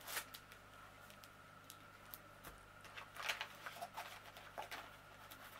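Faint rustling and light ticks from hands handling small craft supplies, with a cluster of sharper ticks about three seconds in.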